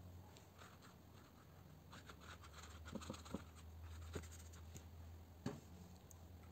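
Faint scratching and light taps of a watercolour brush working on paper, mostly from about two to five seconds in, over a steady low hum.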